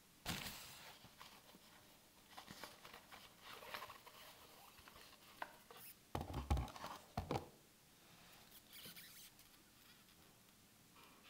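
Handling noise as a wristwatch on a leather strap is taken out of its presentation box: scattered light rustling and clicking, with a few dull knocks about six to seven seconds in, which are the loudest part.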